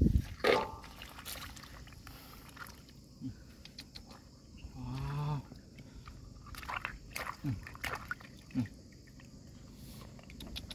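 Clam shells clicking and knocking against each other in a hand, with small splashes and water plops as they are lifted out of a shallow rock pool. A short low human murmur comes about five seconds in.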